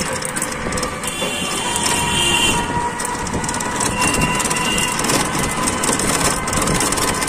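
Ride noise from inside an open rickshaw moving along a busy street: a steady rumble and rattle with wind and surrounding traffic. A few thin, steady high tones come and go over it.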